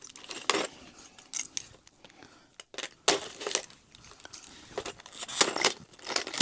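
Small metal bolts from a crib's hardware kit clinking and rattling as they are picked through and handled, in a series of short, irregular clinks.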